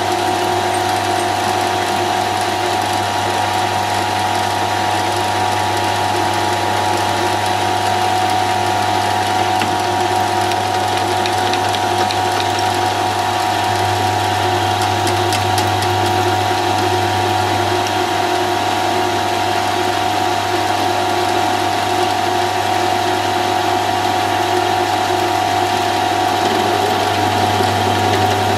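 Milling machine running steadily with a whine from its drive, while a freshly reground end mill takes a side cut in aluminium on its flutes.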